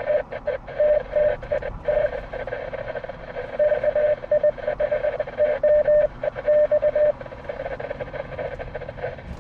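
Morse code CQ from a fox-hunt hidden transmitter, heard through a ham radio's speaker as a single keyed tone beeping in dots and dashes over static hiss. The signal is weak, barely breaking squelch. The keying stops about seven seconds in, leaving only the hiss.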